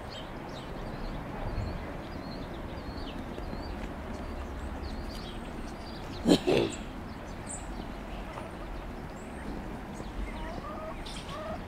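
Small birds chirping faintly and often over a steady outdoor hiss, with one brief louder call or squawk about six seconds in.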